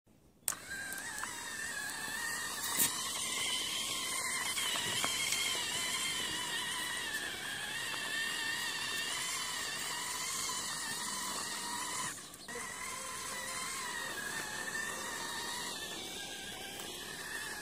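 Small electric gear motor of a wired toy John Deere tractor whining steadily as it pulls a trolley loaded with sand through sand. It cuts out briefly about twelve seconds in, then starts again.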